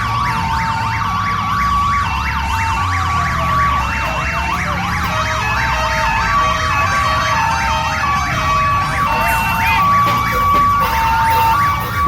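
Telolet horns and sirens on parade odong-odong vehicles sounding together: several sirens warbling in quick up-and-down sweeps, a slower siren wailing up and down, and horn blasts alternating between two notes in a repeating tune, over a low rumble.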